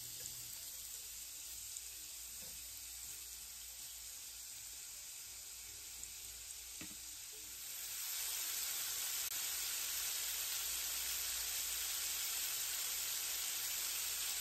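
Jumbo shrimp sizzling as they fry in a little oil in a nonstick pan, with a couple of faint ticks from a fork against the pan early on. The sizzle gets louder about eight seconds in and holds steady.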